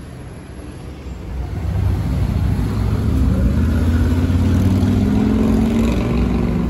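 Vehicle engine running close by, getting louder about a second and a half in and then staying loud and steady.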